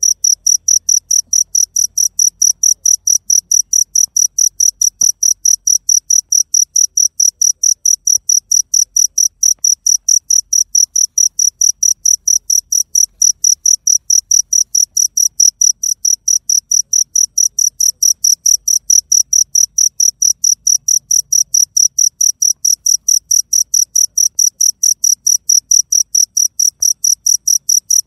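Cricket chirping steadily, a high-pitched pulse repeating evenly about four times a second.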